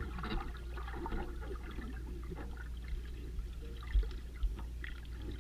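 Underwater sound picked up by a submerged camera: a steady low rumble with air bubbles crackling and popping in the water. Two brief dull thumps come about four seconds in, half a second apart.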